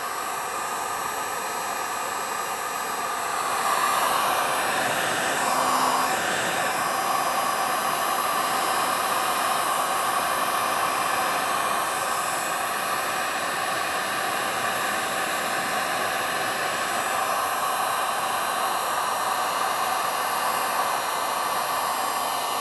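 Electric heat gun running, its fan blowing a steady rush of hot air; it grows louder about three and a half seconds in.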